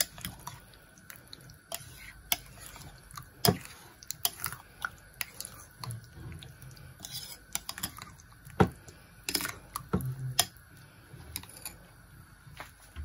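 A spoon mixing yogurt with chopped cucumber in a glass bowl: irregular clicks and taps of the spoon against the glass.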